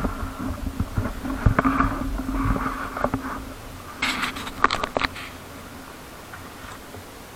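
Wind buffeting a kayak-mounted camera microphone over water sloshing against a hull under sail, with a cluster of sharp knocks about four to five seconds in, then settling into a steady hiss.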